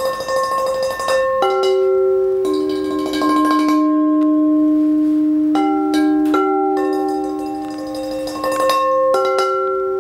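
Three large salad bowls played as bell-like percussion, struck by hand: each strike sets off a clear ringing tone that sustains for several seconds, and new notes at different pitches come every second or so, overlapping into a slow melody.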